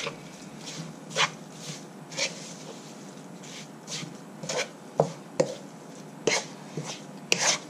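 Wooden spatula scraping and knocking against a non-stick wok while a mince and herb mixture is tossed, in irregular strokes about a second apart.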